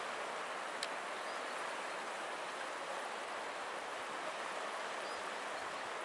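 Steady rushing of a stream, water running over rocks in an even wash of noise.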